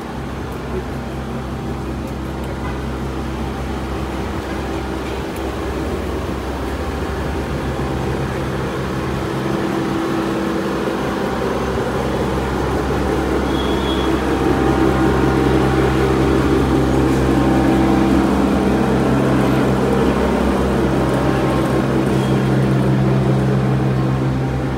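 Steady low mechanical hum made of several held tones, growing gradually louder.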